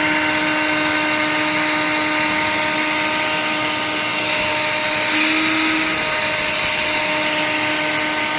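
Vacuum cleaner running steadily while grooming a cat's fur: a constant motor hum over a rushing hiss, with a brief slight shift in pitch about five seconds in.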